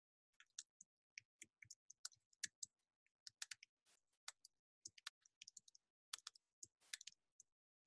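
Faint typing on a computer keyboard: a run of irregular keystroke clicks, several a second, as a short sentence is typed.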